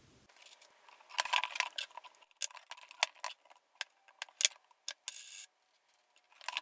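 Light metallic clicks and short scrapes of circlip pliers fumbling with an inside circlip in a gear lever housing, the tips slipping and snapping against the steel, in an irregular string of about a dozen clicks.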